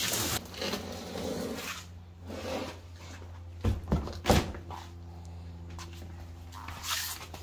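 Cardboard scraping and rustling as the outer sleeve of a long shipping box is slid off, then three sharp thuds about four seconds in as the empty cardboard sleeve is tossed down onto the pavement.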